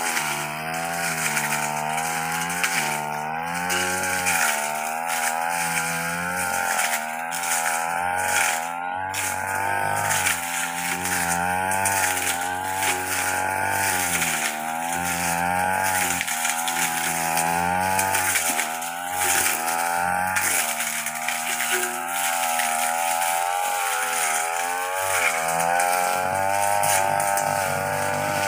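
Stihl backpack brush cutter running under load as it cuts grass and ferns, its engine speed rising and falling every second or two as the blade bites into the growth and frees up again.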